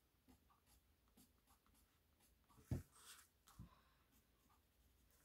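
Faint scratching of a watercolor pencil colouring on paper, with a soft thump against the table about halfway through and a smaller one just after.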